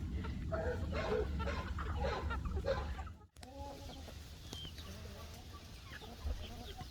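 Chickens clucking as they feed, many short calls at once. About three seconds in, the sound cuts out briefly and resumes with fewer, fainter clucks over a low rumble.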